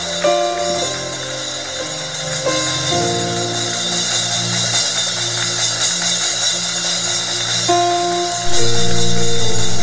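Church praise band playing: sustained keyboard chords that change every few seconds over drums, growing suddenly louder near the end.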